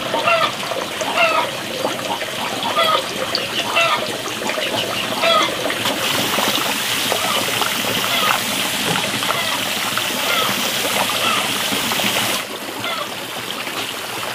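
Water trickling and splashing from a watering can onto garden plants; the water sound drops off abruptly near the end. A short animal call repeats over it about every second and a half.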